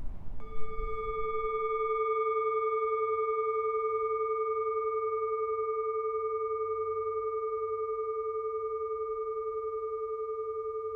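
A singing bowl struck once about half a second in, ringing on with a long steady tone that slowly fades and gently wavers, marking the close of the practice. Wind rumbles on the microphone for the first second or so.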